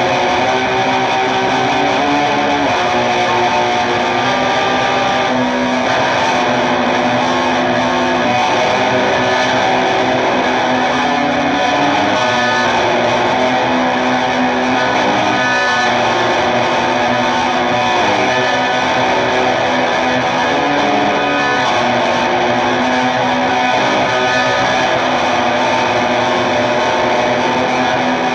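Music: a dense, steady wall of distorted electric guitar through effects, with held notes that change every few seconds.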